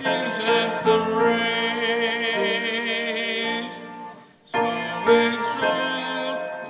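Church music: a held melody line with vibrato over a keyboard accompaniment, with a brief pause about four seconds in.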